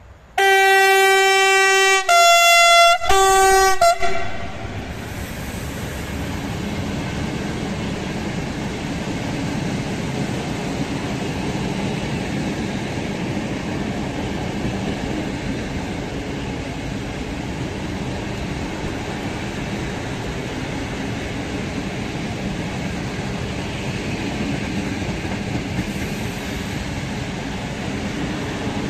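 Electric locomotive's two-tone horn sounding three blasts, high, low, high, in the first four seconds. Then the steady rumble of a long train of open freight wagons rolling past on the rails.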